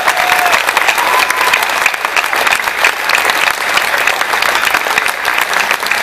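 Crowd applauding steadily, with dense clapping throughout.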